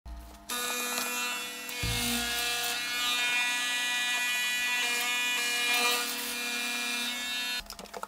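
Hoover SmartWash carpet cleaner running, its motors giving a steady whine of several fixed tones, with a low thump about two seconds in. The whine cuts off shortly before the end.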